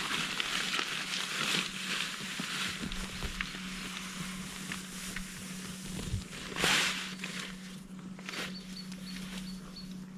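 Nylon tent fabric rustling as it is handled, with a sharper, louder rustle about two-thirds of the way through.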